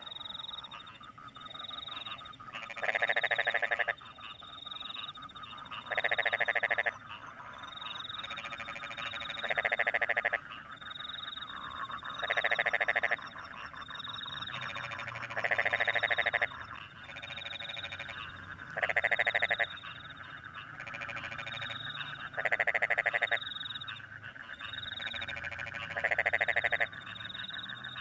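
Rice-paddy frogs calling after rain: one loud croak of rapid pulses lasting about a second comes about every three seconds over a steady chorus of other frogs. Short high chirps of crickets repeat about once a second.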